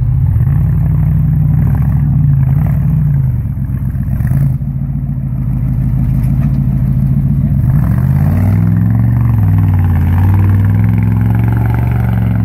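Fuel-injected 5.7-litre V8 of an off-road Suzuki Vitara-bodied truck working under load in mud: revving up, dropping to a lower note about four seconds in, then revving up again about eight seconds in, its pitch rising and falling.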